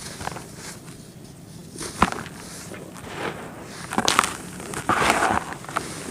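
Dry red dirt lumps crunching and crumbling, with sharp cracks about two and four seconds in and a dense gritty crunch a little after the middle.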